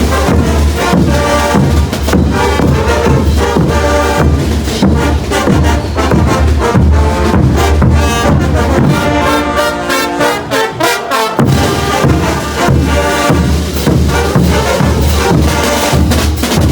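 Brass band playing loudly: trumpets and trombones over low brass and a steady drum beat. About ten seconds in, the low brass and drums drop out for a couple of seconds while the upper brass carries on, then the full band comes back in.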